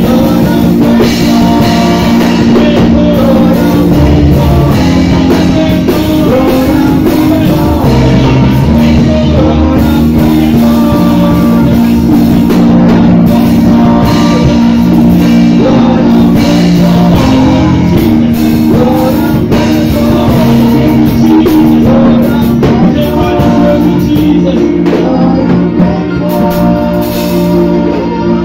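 Loud amplified live praise music: singers on microphones over drums and guitar, played through a PA system.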